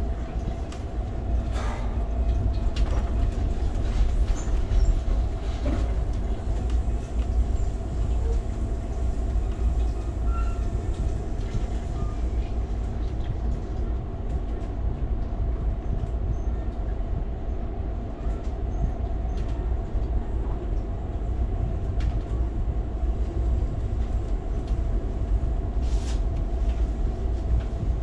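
Passenger train heard from inside a coach: a steady low rumble of wheels on rail under a constant hum, with a few scattered clicks and knocks.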